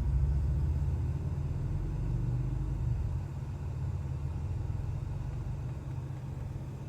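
Car driving, a steady low engine and road rumble that eases off slightly about three seconds in.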